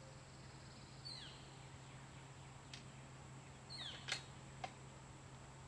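A bird calls twice with short, falling whistled chirps, about a second in and near four seconds in, over a quiet open-air background. A few faint sharp clicks sound too, the clearest about four seconds in.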